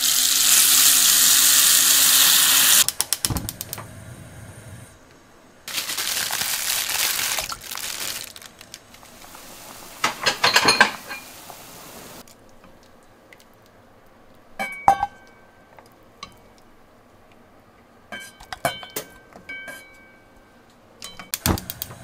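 Kitchen tap running into a pan for about three seconds, and again for a couple of seconds shortly after. Later come scattered clinks and knocks of cookware, some with a short metallic ring.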